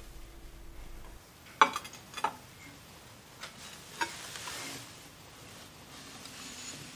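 A few light clicks and taps, then a soft rustle, as a jade pendant necklace is handled in a silk-lined jewellery box.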